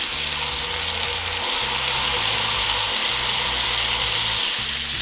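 Whole Pacific saury frying in oil in a frying pan, a steady high sizzle, while cooking wine is poured over the fish.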